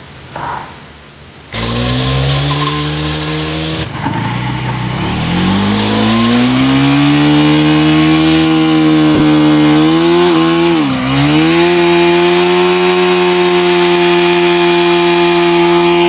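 KTM Duke 390 single-cylinder engine revved hard in a burnout, its pitch climbing for a few seconds and then held high, with a brief dip about eleven seconds in. A squealing hiss from the spinning rear tyre runs underneath.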